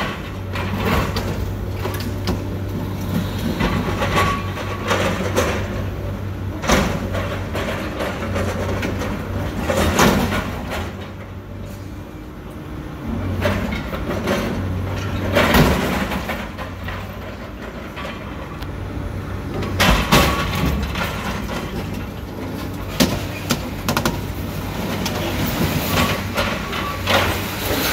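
Diesel engine of a wheeled scrap material handler running steadily, with repeated crunching, scraping and clanging of sheet metal as its orange-peel grapple tears apart an armored truck body. The loudest crashes come about ten, fifteen and twenty seconds in.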